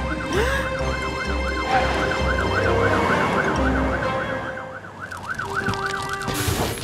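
Cartoon fire-engine siren wailing rapidly up and down, about three sweeps a second, stopping shortly before the end. A low rumble runs under it for the first four seconds or so.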